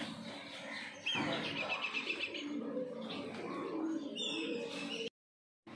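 Birds chirping: a quick run of repeated chirps starts about a second in, and a few higher, falling chirps come near four seconds. The sound cuts out completely for about half a second near the end.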